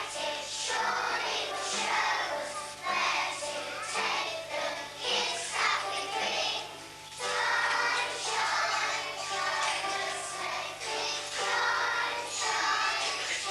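Music with a group of children singing, pausing briefly about seven seconds in, over a steady low hum.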